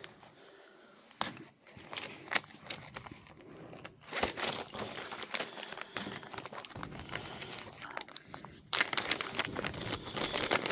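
Thin plastic bag crinkling and rustling as it is opened and handled, with light clicks from the metal blades inside it. The rustling gets busier and louder for the last couple of seconds.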